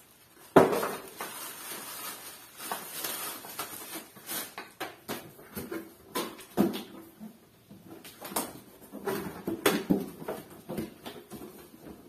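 Unboxing noises: plastic wrapping rustling and crinkling, with scattered knocks and bumps of the vacuum cleaner's body against its cardboard box. The sharpest knock comes about half a second in.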